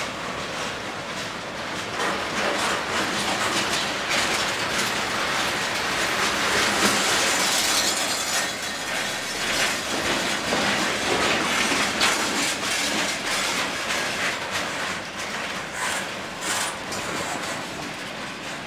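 Freight cars of a long mixed manifest freight train rolling slowly past. The wheels clatter steadily over the rail joints.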